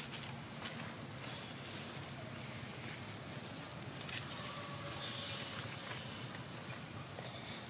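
Outdoor ambience: a steady high-pitched insect drone with a few faint high chirps and light scuffs.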